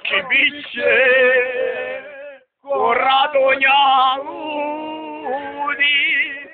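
A voice singing loudly and close by: two long phrases with wavering held notes, a brief break between them.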